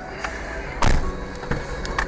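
A single loud thump about a second in, then a lighter knock, inside a stationary car's cabin, with music playing faintly underneath.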